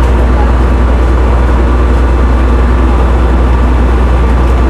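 A ro-ro ferry's engines running, a loud, steady low drone.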